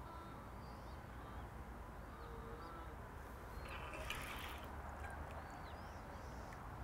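Faint outdoor ambience: a low steady rumble with a few faint, short, high bird chirps scattered through it.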